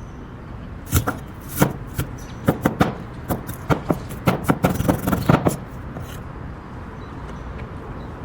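Knife chopping on a cutting board: a run of about a dozen irregular knocks that stops after about five and a half seconds.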